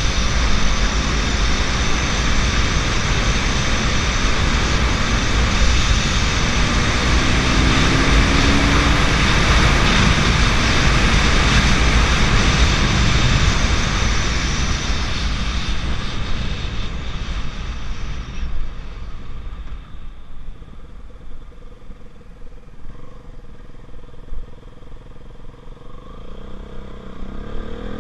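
KTM RC 200 single-cylinder motorcycle under way, its engine running under a loud, steady rush of wind. A little past halfway the sound dies away over a few seconds as the bike slows, leaving quieter engine running with a faint steady hum.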